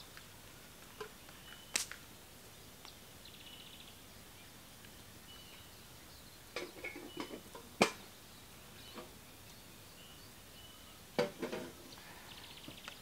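Sharp clinks and knocks of metal camp mugs and a spoon, some ringing briefly, loudest about eight seconds in and in clusters around seven and eleven seconds, over faint bird chirps and trills.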